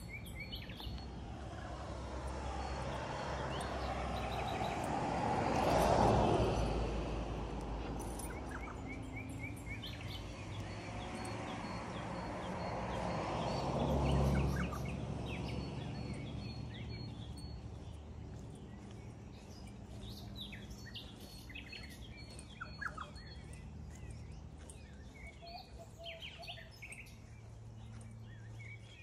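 Two vehicles passing by on a suburban street, each swelling and fading away, about six and fourteen seconds in. Birds chirp and call throughout.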